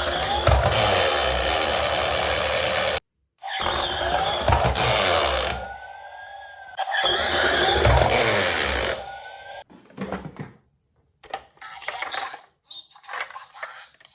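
Toy ambulance minicar rolling down a slope three times, its small wheels making a loud rattling roll on each run. A faint rising and falling siren tone sounds between the runs, and scattered light clicks and taps follow near the end.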